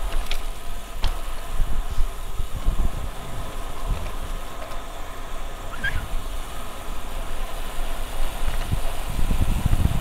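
Wind buffeting a helmet-mounted action camera's microphone while riding a road bike, an uneven low rumble mixed with tyre and road noise. A few light clicks and a short high chirp about six seconds in.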